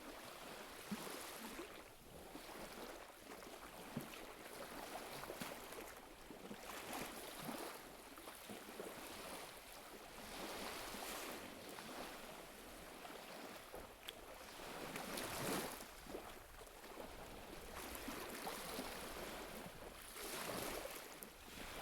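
Soft water lapping and splashing, swelling and fading every couple of seconds, with small splashes now and then.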